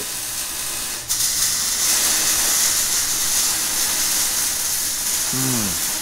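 Steady, fairly loud hiss that starts abruptly about a second in, with a short falling hum from a person's voice near the end.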